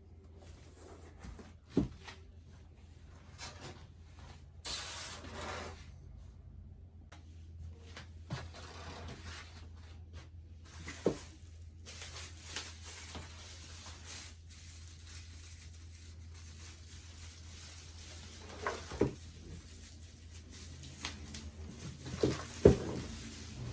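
Packaging being handled during unboxing: scattered knocks and taps, and a stretch of rustling or tearing about five seconds in, with the loudest pair of knocks near the end. A low steady hum runs underneath.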